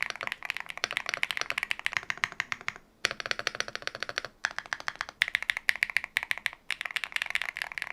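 Fast typing on a QwertyKeys Hex80 Hall effect keyboard with Owlab TI-HE magnetic switches: a dense run of crisp, clacky keystrokes. It breaks off briefly about three seconds in and picks up again with a slightly different tone, a comparison of the keyboard typed with frosted PC stock keycaps and with double-shot PBT keycaps.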